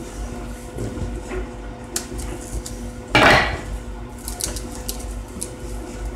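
Light clicks and knocks of hands working garlic cloves and a steel knife on a wooden cutting board, with a brief louder rustle about three seconds in, over a faint steady hum.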